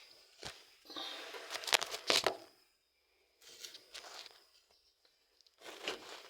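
Handling noises as the washing machine's back cover is worked on with a screwdriver: several short bursts of scraping and rustling with sharp clicks, the loudest about two seconds in.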